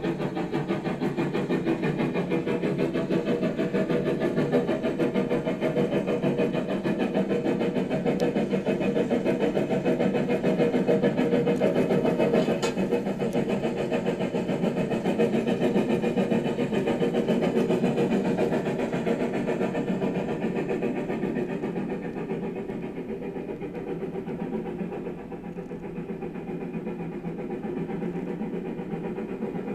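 Steady engine-like mechanical running noise that eases somewhat about three quarters of the way through.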